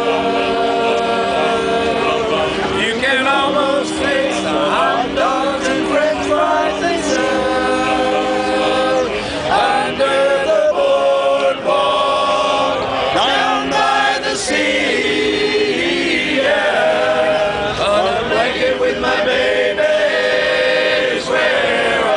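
Male barbershop quartet singing a cappella in close four-part harmony, holding chords that shift every second or so.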